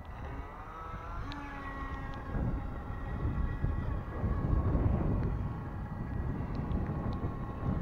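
Electric RC speedboat motor whining, rising in pitch as the boat accelerates away in the first second and a half, then holding a steady high whine. A gusty low rumble grows louder through the middle.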